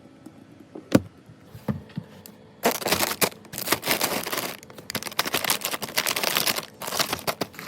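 Snack packaging being handled, with plastic rustling and crinkling and many small clicks and knocks. A single sharp knock comes about a second in, and the dense rustling starts about two and a half seconds in.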